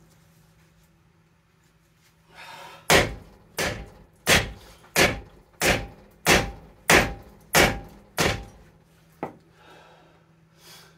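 A hammer strikes a corroded, seized rear wheel bearing hub on a Subaru Outback nine times in a steady rhythm, about one blow every two-thirds of a second, each with a short metallic ring. A lighter knock follows. The blows are meant to break the rusted-in bearing hub and its outer race loose from the knuckle.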